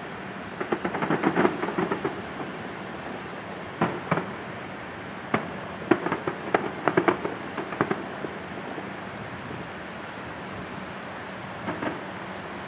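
Distant fireworks display: salvos of sharp bangs and crackling over a steady background hiss. A flurry of bangs comes about a second in and another around six to eight seconds, with single reports between them, then a lull before a few more bangs near the end.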